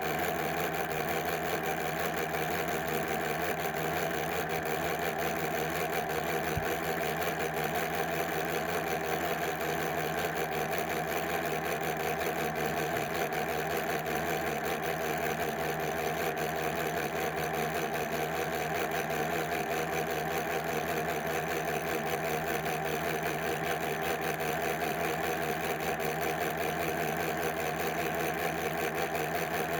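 Steady buzzing computer-malfunction drone with a fast, fine flutter that does not change.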